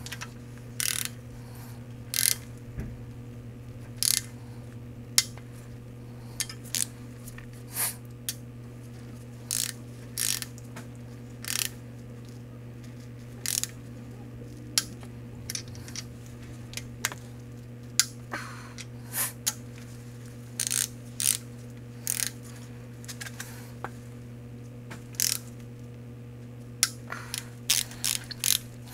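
Ratchet wrench clicking in short irregular bursts while the ARP head stud nuts on a BMW M50B25TU cylinder head are run down. A steady low hum sits underneath.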